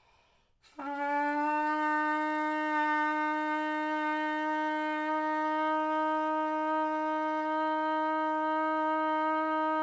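Trumpet played on just the mouthpiece and lead pipe, with the tuning slide removed: one long, steady held note, a ten-second long-tone exercise. It starts about a second in and continues without a break.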